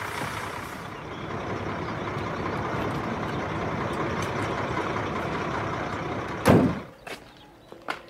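Large truck engine running steadily, then one loud thud about six and a half seconds in, after which the engine sound drops away.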